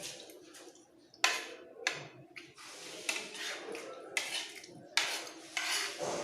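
A spoon scraping and clinking against a plate while scooping up fried rice, with several sharp clinks among the scrapes.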